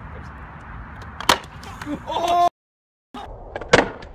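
Skateboard deck slammed against concrete, two sharp cracks about two and a half seconds apart, with a sudden half-second dropout to silence between them.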